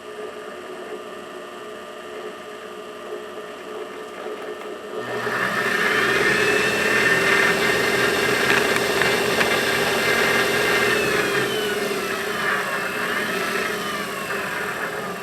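Wen mini lathe's variable-speed motor running as its new speed controller is tested: it hums steadily at low speed, then its whine climbs about five seconds in and holds high, before sliding back down and wavering near the end as the speed is turned down.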